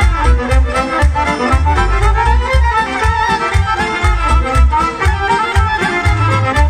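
Folk music from two violins and a clarinet over an electronic keyboard with an accordion-like sound, all played together over a steady bass beat.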